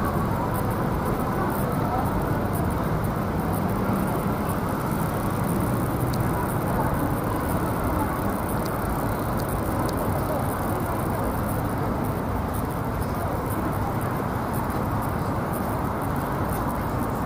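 Steady city street ambience: a low hum of distant traffic with faint, indistinct voices.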